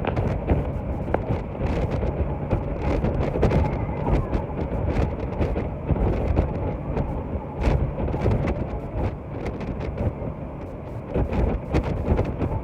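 Wind buffeting the microphone on a moving boat, over the steady low rumble of the boat's engine; the loudness rises and falls in gusts.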